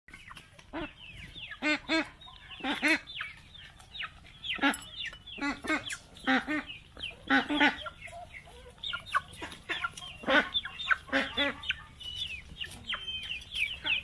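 A flock of young chickens clucking and cheeping: many short overlapping calls, with a louder cluck every second or so.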